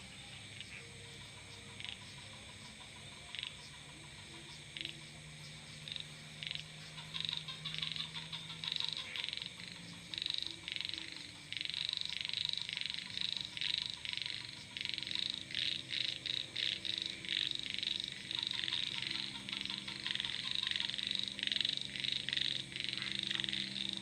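Frogs calling: single short calls a second or two apart at first, building about a third of the way in to a dense, overlapping chorus of rapid repeated calls, over a faint low steady hum.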